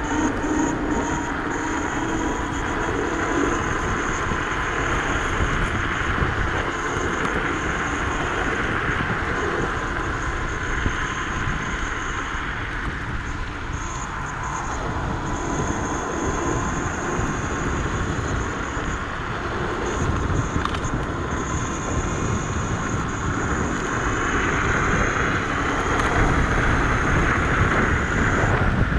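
Dualtron electric scooter riding fast: wind buffeting the microphone and tyre noise, with a thin motor whine that rises in pitch over the first few seconds and a faint high whine that comes and goes.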